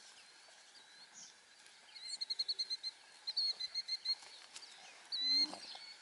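High-pitched animal calls: two quick runs of short, evenly repeated notes, about ten a second, starting about two seconds in, then one longer, louder note near the end.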